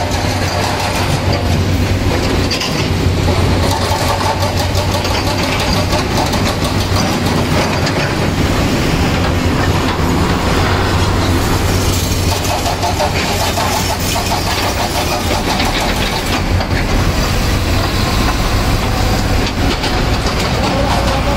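Diesel engine of a heavy vehicle running with a steady low hum, with continuous clattering and rattling of the cab, heard from inside the cab while it drives.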